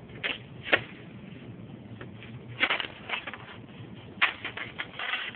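Irregular clicks, taps and short scrapes of hands and a tool working on roof slate, pieces of slate knocking and scraping against each other.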